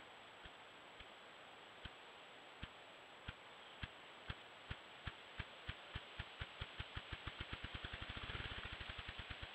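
Male ruffed grouse drumming on a log. Deep wing-beat thumps, slow at first and about a second apart, come steadily faster until they run together into a rapid whir near the end. This is the grouse's territorial and courtship display.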